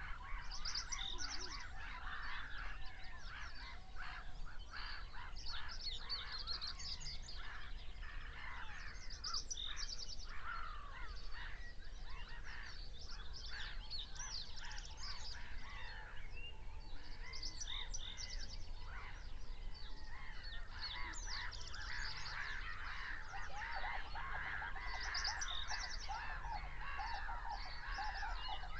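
Many birds calling at once, with geese honking among them; the honking thickens in the last few seconds.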